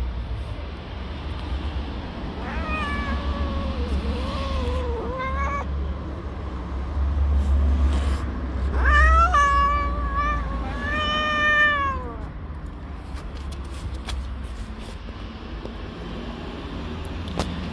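Adult tabby cat yowling angrily in defence of her kittens. One wavering yowl comes about three seconds in, then a louder run of drawn-out, falling yowls from about nine to twelve seconds in.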